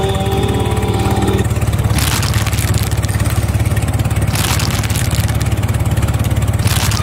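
Tractor engine sound running steadily, a loud low rumble with fast, even pulsing, played as the toy tractor is pushed along. There are a couple of brief louder hissing surges.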